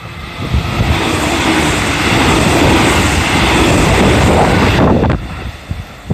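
A 313 series electric multiple unit passing at speed close by: a rushing noise of wheels on rail builds, stays loud for a few seconds, then drops away sharply about five seconds in as the train clears.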